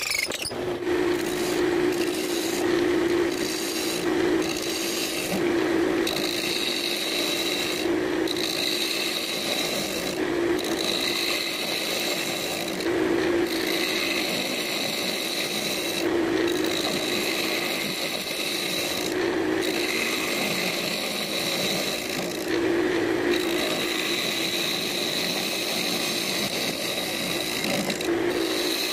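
A hand-held gouge cutting into the end grain of a cherry-wood blank spinning on a wood lathe, hollowing out the opening. It makes a steady scraping, shaving sound over the lathe's running, breaking off briefly every few seconds as the tool is eased off the wood.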